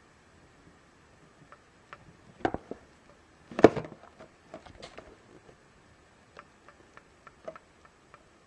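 A cardboard figure box with a clear plastic window handled in the hands and turned over: a few knocks and scrapes about two and a half seconds in, the loudest one about a second later, then light ticks and taps of fingers on the packaging.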